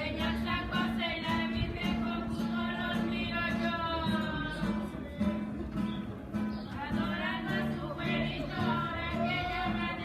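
Latin music playing: a voice singing over guitar and a stepping bass line.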